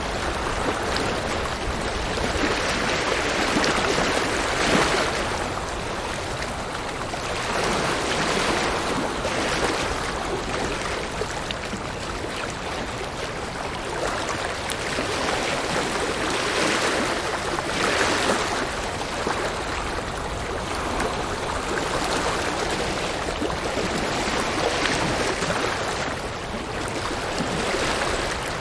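River water flowing: a steady rushing noise that swells and eases every few seconds.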